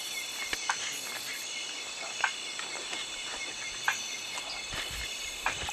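Crickets and other night insects chirring steadily at a high pitch, with a few sharp clicks or snaps scattered through.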